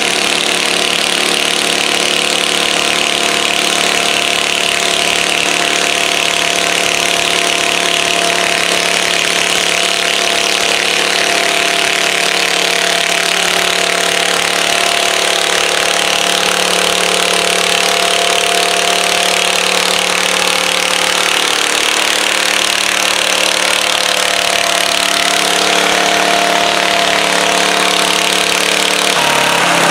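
Modified garden tractor engine running hard at a steady speed while pulling a weight-transfer sled in a garden tractor pull. Its note drops near the end as the pull is stopped.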